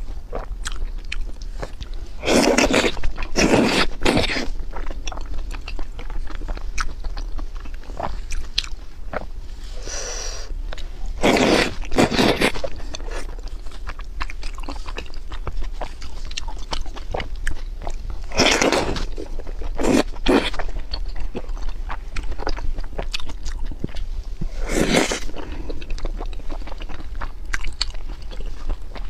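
Close-miked eating of wide noodles in a spicy broth: wet chewing and mouth clicks throughout, broken by about six louder slurps. The slurps come in two around a few seconds in, two more near the middle, and two later on.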